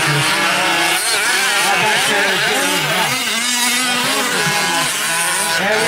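Several gas-powered 1/5-scale RC trucks' small two-stroke engines revving up and down in a race. Their overlapping engine notes rise and fall steadily as the throttles open and close.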